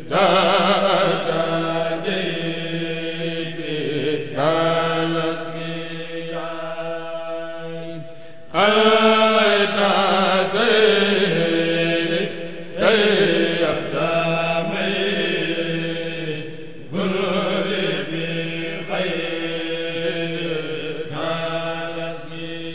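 A group of men of a Mouride kourel chanting a khassida unaccompanied into microphones, in long held phrases, with the voices coming in afresh about every four seconds over a steady low sustained voice.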